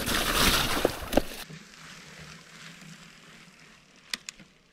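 Rushing noise and a few knocks from a fat bike being ridden over rough, boggy ground. After about a second and a half it cuts off abruptly to a faint low hum, with two small clicks near the end.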